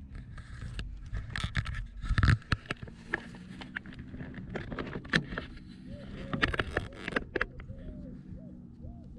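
Handling noise in an aluminum fishing boat: irregular knocks, clicks and scrapes against the hull, with a loud thump about two seconds in, over a low steady hum. Short repeated squeaky tones come in near the end.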